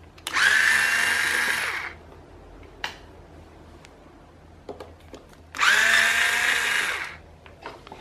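Electric screwdriver running twice, about a second and a half each time, with a steady whine as it backs Phillips screws out of a desk fan's oscillation gearbox.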